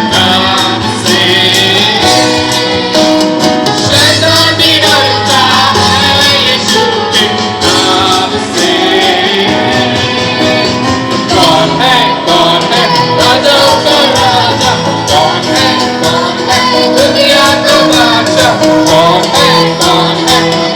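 Christian action song: voices singing a melody over music with a steady beat.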